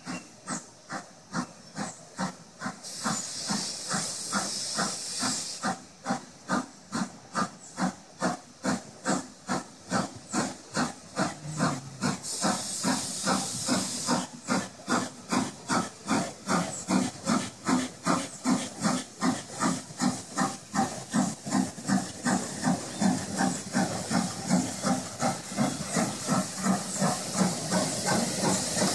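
Strasburg Railroad No. 90, a 2-10-0 steam locomotive, pulling seven loaded freight cars: a steady beat of exhaust chuffs, about three a second, growing louder as it approaches. Two bursts of steam hiss come a few seconds in and again near the middle.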